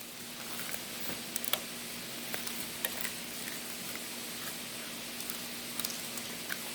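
Chicken wings frying in hot oil, a steady sizzle with a few sharp crackles scattered through it.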